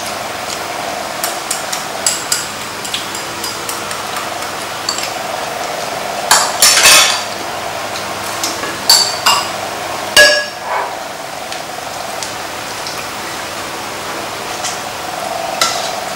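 Chopsticks and spoons clicking and clinking against ceramic rice bowls and a metal pan during a meal, with a few louder knocks and scrapes about six, nine and ten seconds in, over a steady faint hum.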